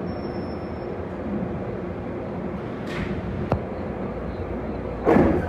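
PATH PA-5 subway car coming to a stop at a station platform: a high brake and wheel squeal fades out in the first second, leaving the car's steady rumble and hum with a couple of light clicks. Near the end a sudden loud clatter as the sliding doors open.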